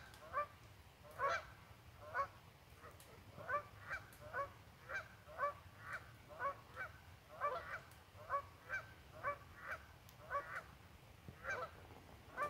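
Geese honking, a continuous run of short calls about two a second, with a faint low rumble underneath.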